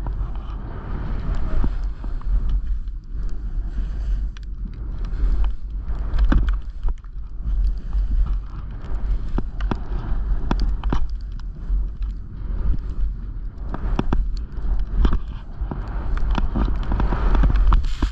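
Wind rumbling on a GoPro action-camera microphone during a fast descent through deep powder snow, with the hiss of snow sliding under the rider and scattered knocks and clicks. It gets louder near the end as powder sprays over the camera.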